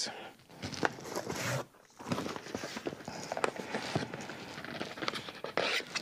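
Cardboard boxes and packaging handled on a desk: rustling and scraping with a run of light knocks and clicks, and a short lull just before 2 seconds in.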